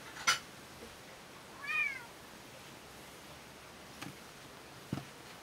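An orange-and-white domestic cat gives one short meow about a second and a half in, rising and then falling in pitch. A sharp click comes just before it, and two soft knocks later on.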